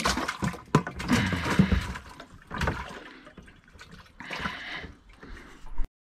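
A crappie thrashing and splashing in shallow water inside a plastic bucket: a long burst of splashing, then two shorter ones.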